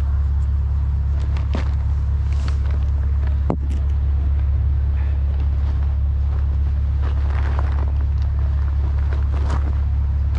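An engine running steadily: a constant low hum, with a single sharp click about three and a half seconds in.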